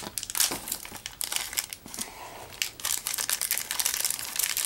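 Thin clear plastic packaging bag crinkling and crackling in irregular spurts as hands work it open to take out a Beyblade part.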